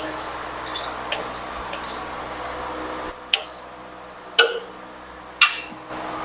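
Three sharp clicks about a second apart, the last two louder with a short metallic ring, from hand tools working on the truck's battery cable connections.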